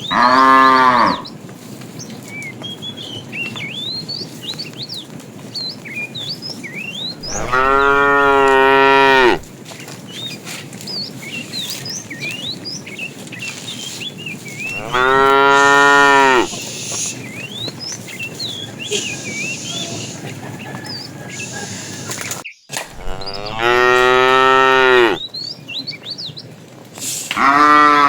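Cow mooing five times, each call a long pitched moo of one to two seconds, spaced several seconds apart.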